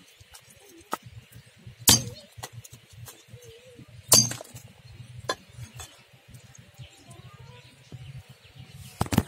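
A cleaver chopping through a needlefish on a wooden block: sharp, hard chops at uneven intervals, the loudest about four seconds in, with a quick double strike near the end and lighter knocks between.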